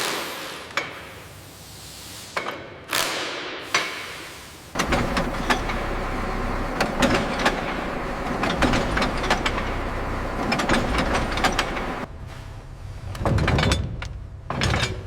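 Several separate metallic knocks with short fading tails. Then a long stretch of dense mechanical clattering and ticking over a low hum, with a heavier low rumble near the end.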